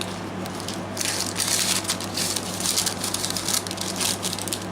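Paper pages and ephemera of a handmade junk journal rustling and crinkling as they are turned and handled, starting about a second in, over a steady low hum.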